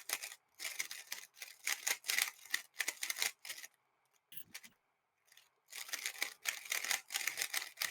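Rapid clicking and clacking of a 3x3 speedcube's layers being turned fast during a solve, stopping for about two seconds midway apart from a couple of clicks before the turning picks up again.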